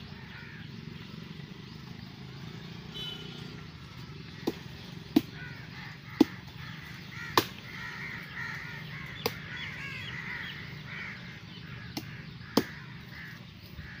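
Birds calling in a run of short, quick chirps from about five to eleven seconds in, over a steady outdoor background. About seven sharp knocks come at uneven intervals, the loudest a little after five and six seconds in and near the end.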